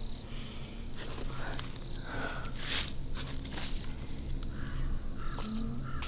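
Footsteps and rustling on a forest floor, a few uneven steps with one sharper crunch near the middle, over the light chirping of insects.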